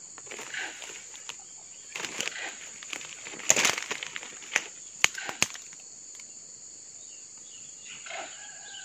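Footsteps rustling and crunching through dry leaves and undergrowth, loudest in the middle, with a few sharp snaps about five seconds in. A steady high-pitched drone of insects runs underneath.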